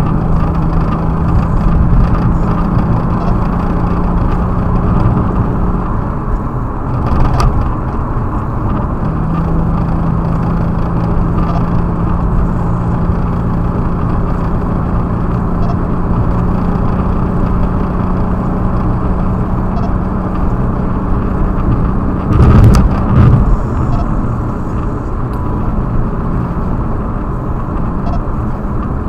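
BMW 335i's N54 twin-turbo inline-six running with a steady engine note while in limp mode from a cylinder 4 misfire caused by a bad spark plug. About three-quarters of the way through there is a brief louder burst of knocks.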